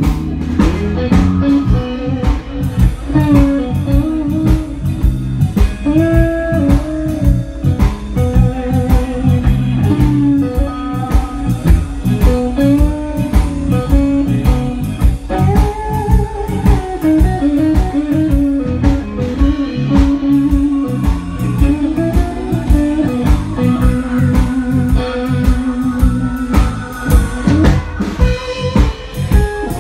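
Live blues band playing an instrumental break: an electric guitar lead with bent notes over a steady bass line, drum kit beat and keys.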